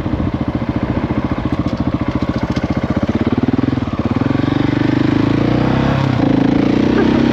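Husqvarna 701's single-cylinder engine running under way, its rapid firing pulses clearly heard. The engine note rises a little and evens out about halfway through as the bike picks up speed.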